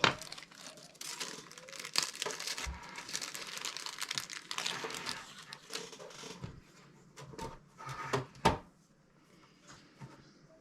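Scratchy rustling and scraping for about five seconds, the sound of small items being handled at a workbench, then scattered light clicks and a sharper knock about eight seconds in. There is no drill running.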